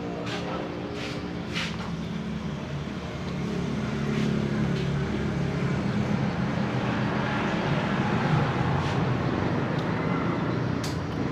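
A motor vehicle engine running steadily, with a few short clicks over it.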